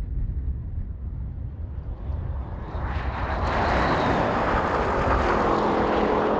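Cars accelerating hard from a standing start in a drag race on a runway: low rumble and wind noise at first, then from about three seconds in a loud, rising rush of engine and road noise with a faint high whine, which stays loud.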